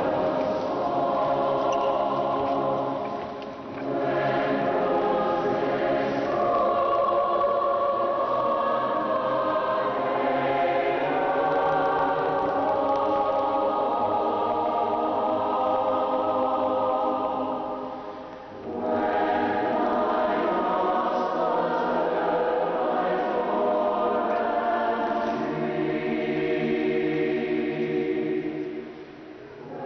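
A choir singing held chords in a church, pausing briefly between phrases about four seconds in, around eighteen seconds in, and just before the end.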